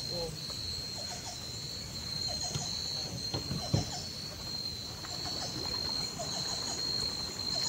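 Steady high-pitched drone of rainforest insects, with a low rumble beneath and a single sharp knock about halfway through.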